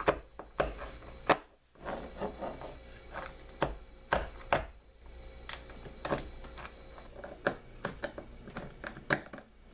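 A screwdriver tip picking and scraping inside a turkey wing humerus to break up the spongy marrow, giving irregular sharp clicks and scrapes. Near the end a knife blade scrapes at the bone's end.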